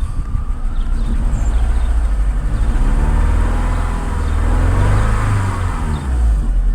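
Seat Ibiza II's 1.4 16-valve petrol engine running and revved once, the pitch rising slowly and dropping back to idle near the end. The engine is being checked for a cylinder 3 misfire (code P0303).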